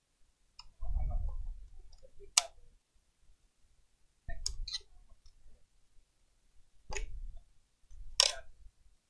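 Small plastic and metal clicks and dull bumps of hands and small tools working on a laptop's open base while refitting its Wi-Fi card. A few separate sharp clicks, the clearest about two seconds in and near the end.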